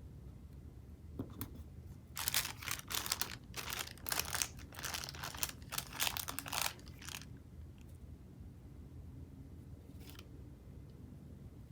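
Paper sticker sheet being handled and peeled, crinkling and rustling in a busy patch from about two to seven seconds in, with a couple of light single clicks before and after.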